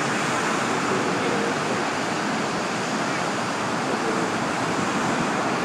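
Steady rush of rough lake surf breaking on a sandy beach, with faint voices of a crowd over it.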